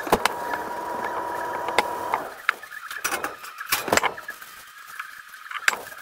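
Cast iron skillet being handled on a silicone mat: several sharp knocks and some rubbing as it is set down, wiped with a shop towel and turned over. Under it is a steady hum with a faint whine that stops about two seconds in.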